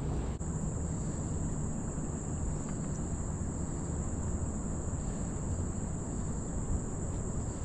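Insects trilling steadily at a high pitch, over a low, even background rush.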